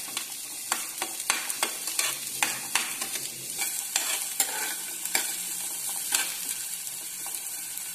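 Shallots frying in oil in a metal pan, sizzling steadily, while a metal spatula stirs them, clacking and scraping against the pan many times.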